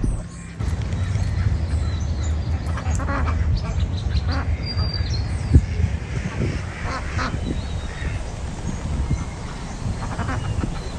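Ducks quacking several times over a steady low rumble.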